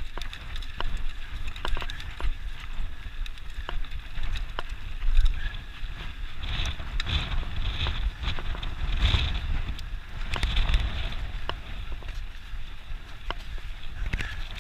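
Mountain bike ridden over a dry dirt trail: wind buffeting the microphone as a low rumble, tyre noise on the dirt that grows louder for a few seconds in the middle, and frequent sharp clicks and rattles from the bike over bumps.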